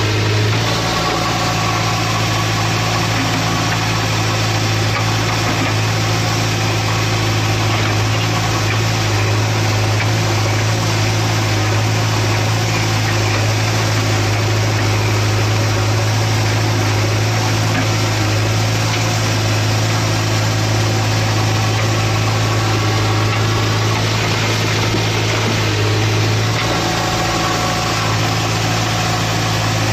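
JCB 3DX backhoe loader's diesel engine running steadily as its backhoe digs and loads soil, a constant low drone with higher overtones.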